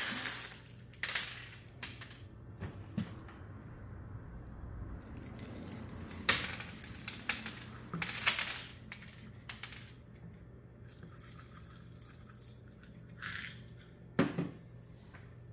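Rock salt being measured out and poured into a jar of shrimp: a grainy rustling pour for a few seconds, among scattered crinkles and clinks from handling the packaging and containers.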